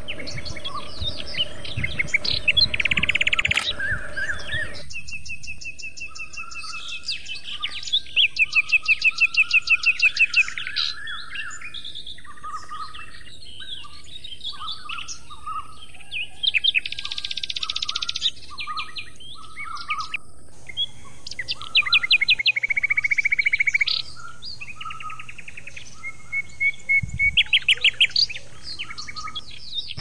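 Several songbirds singing and calling together: fast trills and rapid runs of high chirps over shorter, lower whistled notes. The mix of voices changes abruptly twice.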